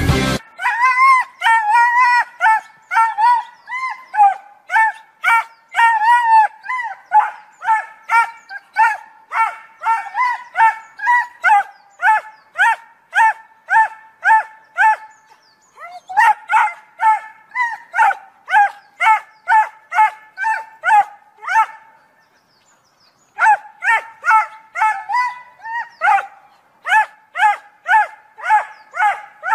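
A small dog barking over and over, short high-pitched barks about two a second, with a pause of about a second three-quarters of the way through.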